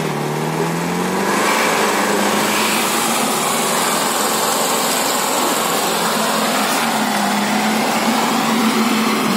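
Off-road vehicle engine running under load, its pitch climbing over the first second or so and then holding steady.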